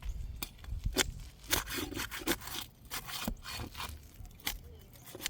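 Asphalt roof shingle being pried up and pulled off: scraping and rubbing with several sharp cracks as it tears loose from its sealant and the shingle below.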